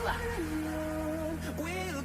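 Background music: a slow melody of long held notes over a steady low bass.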